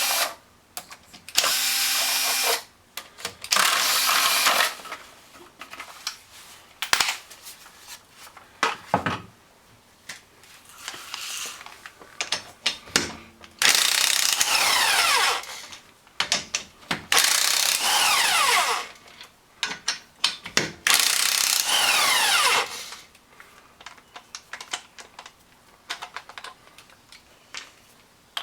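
A handheld power tool runs in about five bursts of a second or so each, with pitch falling as it winds down, plus some smaller clanks between. This is typical of loosening a car's rear wheel lug nuts before taking the wheel off.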